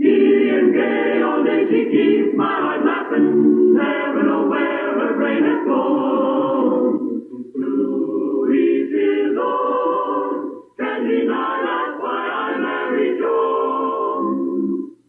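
A choir sings the sitcom's theme song as the episode closes. The sound is old band-limited mono TV audio, with short breaks between phrases about 7.5 and 11 seconds in.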